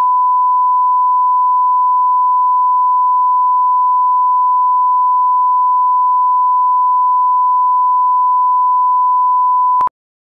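A loud, steady 1 kHz reference tone, a single pure pitch held for nearly ten seconds, cutting off abruptly with a faint click near the end: the test tone laid at the head of an edited video.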